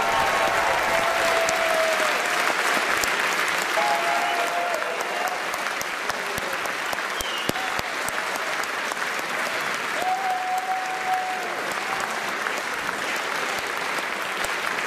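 Large audience applauding steadily for a long stretch, with a few drawn-out cheering shouts rising above the clapping near the start, about four seconds in and about ten seconds in.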